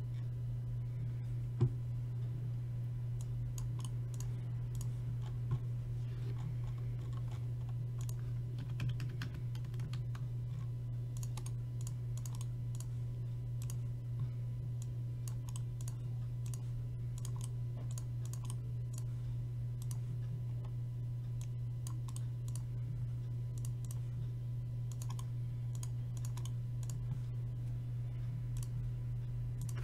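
Typing on a computer keyboard: runs of quick, light key clicks, busiest in the second half. A steady low hum lies under them.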